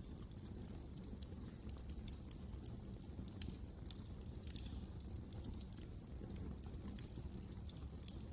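Wood fire crackling in a fireplace: irregular sharp pops and snaps over a low, steady rumble.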